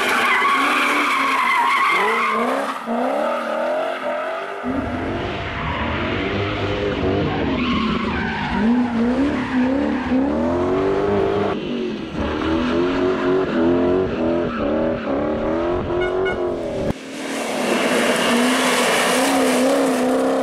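Red Audi A4 rally car driven hard through corners: the engine revs up and drops back again and again with throttle and gear changes, and the tyres squeal as it slides. The sound changes abruptly a few times where one corner's clip cuts to the next.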